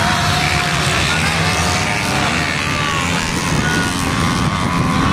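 A pack of off-road motorcycles racing away together across sand, their engines making a dense, steady din. Now and then a single bike's engine note rises or falls in pitch as it revs.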